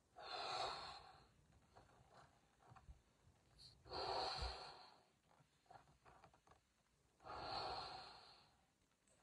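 A blue party balloon being blown up by mouth: three long, breathy puffs of air into the neck, about three and a half seconds apart, with small clicks and quiet inhales between them as the balloon fills.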